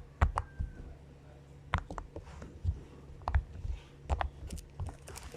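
A fidget toy being handled and popped: a dozen or so sharp, irregular clicks and pops spread over a few seconds.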